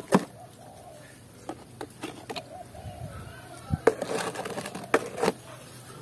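Mud-coated plastic toys clacking and knocking against each other as they are handled and shifted in a plastic basket: a string of short, sharp clacks, with a bigger cluster of knocks about four to five seconds in.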